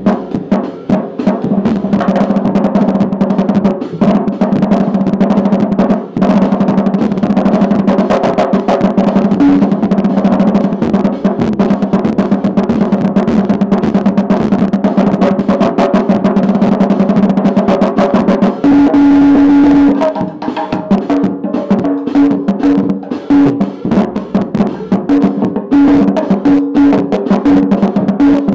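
Acoustic drum kit played with wooden sticks: fast, nearly continuous strokes on the tom and snare heads, like a roll, with the drums ringing. Just before two-thirds of the way in the strokes blur into a short held ring, and after that the hits come in a choppier, broken pattern.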